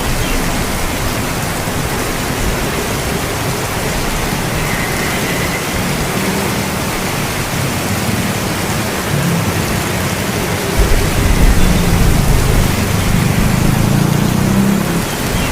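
Steady heavy rain falling, with low rolling thunder rumbling in the second half and swelling about eleven seconds in.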